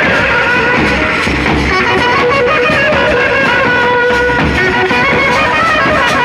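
Indian street brass band playing a tune loudly, with held melody notes over a large bass drum beating steadily beneath.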